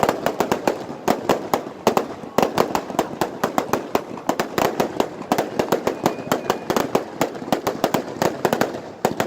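Fireworks display: a dense, rapid barrage of bangs and crackles, several a second without a break.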